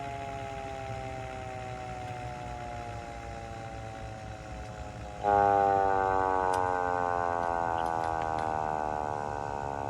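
Vixen Horns VXS-2000MTP hand-crank siren winding down, its tone falling slowly in pitch. About five seconds in the tone comes back suddenly, louder and higher, then falls slowly again.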